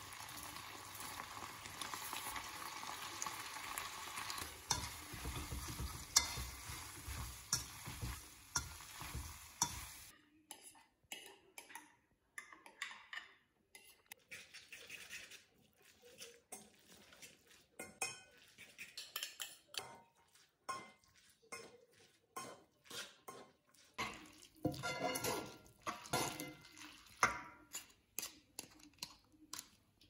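Spaghetti and bacon sizzling in a hot stone-effect nonstick pan while a plastic pasta server stirs and clicks against it. About ten seconds in the sizzling stops, and the pasta is stirred off the heat in short scraping and tapping strokes of the server against the pan.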